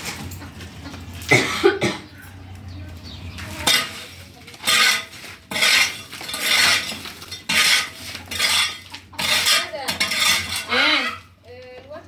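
Flat metal shovel scraping across a hard earth floor in repeated short strokes, roughly one a second, clearing dirt off the floor.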